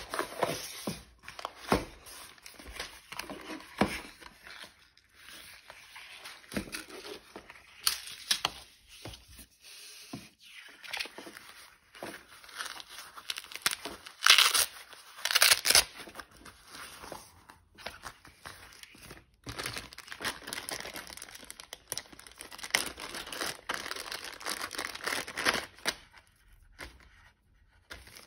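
Hands handling cardboard, paper and plastic packaging: rustling, scraping and light knocks, with two louder brief bursts about halfway through.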